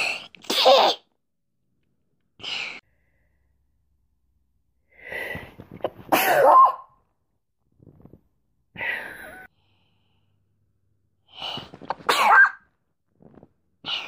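A woman sneezing repeatedly: three loud sneezes, about a second in, about six seconds in and near the end, with softer breaths and smaller sneezes between them.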